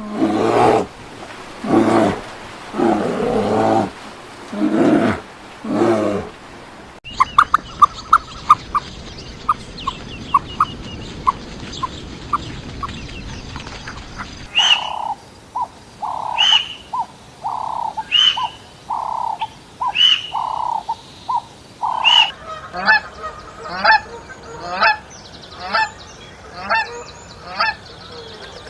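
A series of recorded animal calls, one animal after another. First come about five drawn-out pitched calls, then a run of short clicking pips. From about halfway through, a bird calls loudly and repeatedly, roughly once every three-quarters of a second, then faster near the end.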